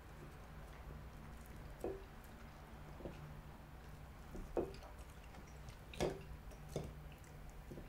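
A few light, irregularly spaced clicks and knocks of chopsticks and tableware at a meal, over a faint low steady hum in a quiet room.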